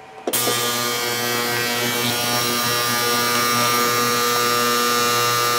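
Digital ultrasonic cleaner switched on, its tank of diesel fuel cavitating: a steady electric buzz that starts abruptly about a third of a second in and holds, with many steady tones stacked in it.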